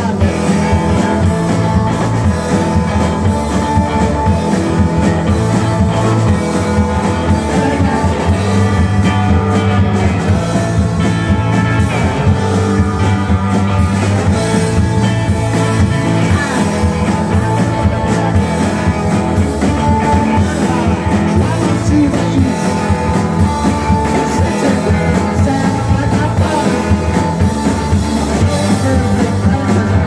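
Live rock band playing through a club PA: distorted electric guitars, bass and a drum kit, loud and steady, with a lead vocal over the top.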